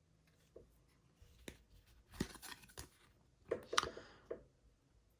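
Trading cards handled and flipped through by hand: a handful of faint, short card slides and flicks, a few of them in quick pairs.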